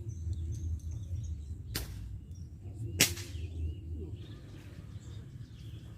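Two quick, sharp swishes of a fishing rod being cast, the second one louder, over a steady low rumble.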